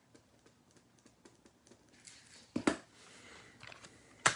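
Light clicks and taps of objects being handled on a tabletop, with two sharper knocks, one a little past halfway and one near the end.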